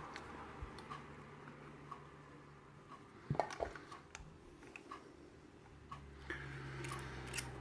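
Faint metallic clicks and ticks of a hook pick and tension wrench working in a pin-tumbler KIK lock cylinder, scattered irregularly, with a couple of sharper clicks about three and a half seconds in.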